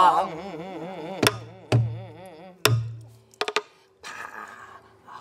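A woman's voice holding a wavering sung note of a Namdo folk song, fading away over the first second, then a buk barrel drum struck three times with deep thuds, followed by a quick cluster of sharp taps of the stick.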